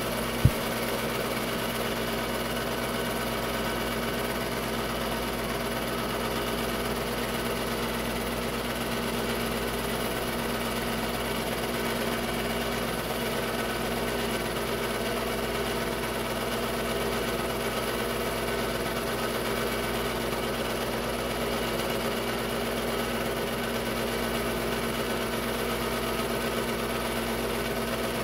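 Technicolor 810 8mm film-loop projector running: the steady mechanical hum and whir of its motor and film drive, with one sharp thump about half a second in.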